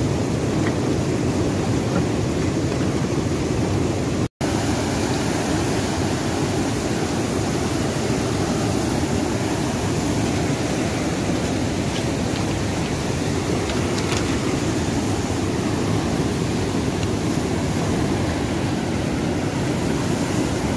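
Fast, silty mountain river rushing over rocks: a steady, dense whitewater rush with no break in it except a split-second dropout about four seconds in.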